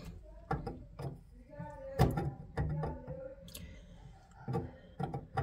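Clicks and knocks of a length of copper pipe being handled against a copper pipe stub, the sharpest about two seconds in and a few more near the end, with some low muttering between them.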